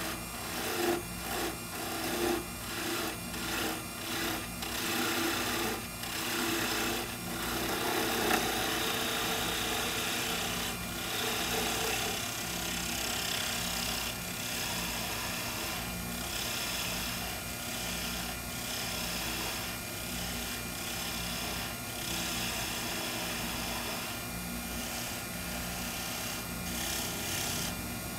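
Wood lathe spinning a sugar maple pen blank while a hand-held turning tool cuts into it, the shavings hissing off the wood over a steady motor hum. For about the first ten seconds the cuts come as short repeated scraping passes, roughly twice a second, then settle into a continuous cutting hiss.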